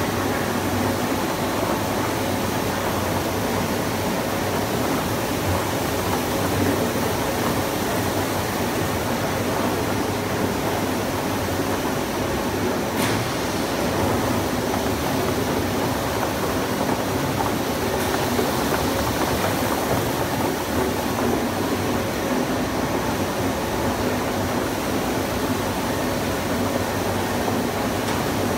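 Octagonal snack seasoning drums turning on a food-processing line, with filled pillow snacks tumbling inside: a steady rushing mechanical noise over a low motor hum.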